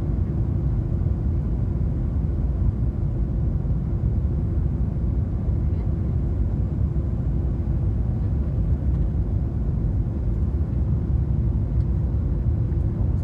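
Steady low rumble of a Boeing 737 airliner's cabin from inside, with engine and airflow noise and a constant hum, unchanging throughout.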